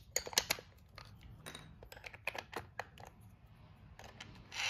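Hard plastic toy parts clicking and knocking together as a bit and a plastic screw are fitted onto a toy drill. There is a quick run of clicks at first, then scattered single clicks.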